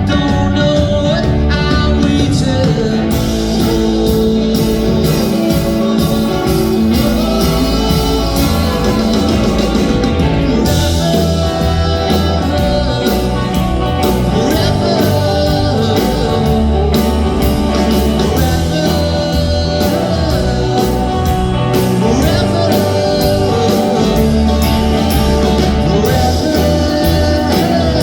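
Live rock band playing a song, with guitar and drums and no clear lyrics.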